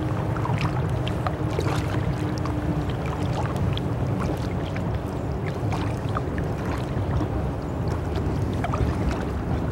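Kayak being paddled on a calm river: scattered small drips and splashes from the paddle over a steady low rumble.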